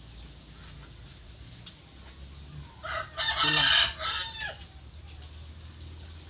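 A rooster crowing once, a single call of about a second and a half starting about three seconds in.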